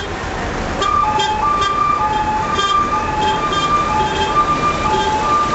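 Emergency vehicle's two-tone hi-lo siren, switching between a high and a low note about every half second, starting about a second in. Street and engine rumble runs underneath.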